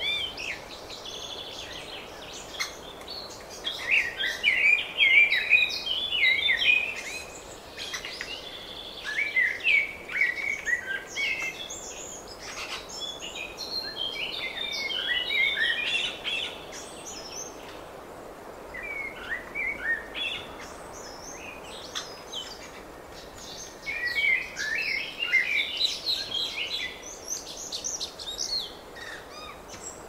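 Songbirds singing in repeated phrases of quick warbling notes, each a couple of seconds long, with short pauses between them, over a steady hiss of background noise.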